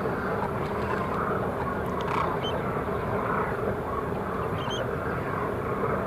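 Steady outdoor background noise, a dense even rumble-hiss, with a few short, high bird chirps, one about two and a half seconds in and a pair near five seconds.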